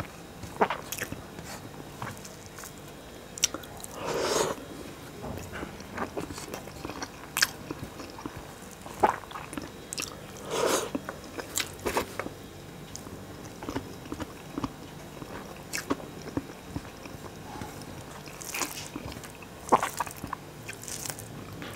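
Close-miked eating by hand: fingers mixing rice on a metal plate, and chewing with scattered mouth clicks and smacks. A few louder, longer bursts stand out, about four seconds in, midway and near the end.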